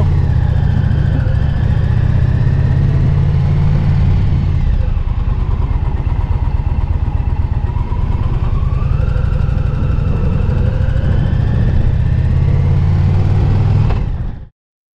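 Motorcycle engine running on the road, a loud, steady, deep rumble, its pitch rising a little about eight seconds in. The sound cuts off abruptly near the end.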